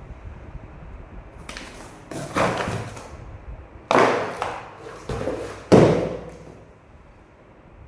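A series of about six knocks and thuds of things being handled. The loudest comes near six seconds in.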